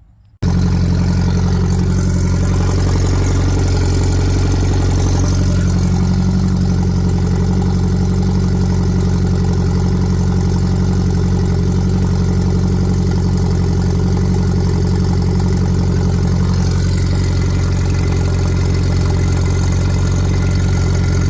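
OMC Cobra sterndrive's Ford engine idling steadily on flush muffs, drawing antifreeze through the cooling system for winter storage. The engine sound comes in abruptly about half a second in, then holds steady.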